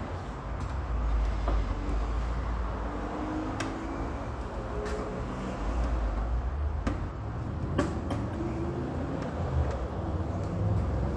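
Hand tools at work on an Audi A6's undercover screws: a few sharp clicks and taps over a steady low background rumble.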